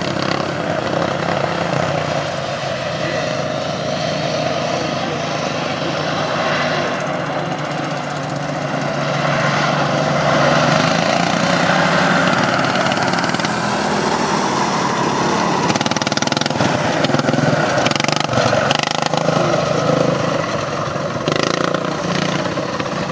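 Racing lawn tractors' small engines running hard on a dirt track, a steady engine drone that grows louder about halfway through.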